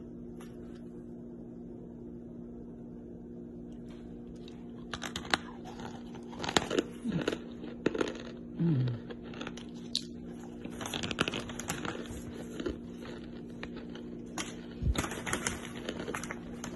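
Gloved fingers crumbling dry chunks of red clay inside a plastic bag: irregular crunching and cracking mixed with plastic crinkling, starting about five seconds in over a steady low hum.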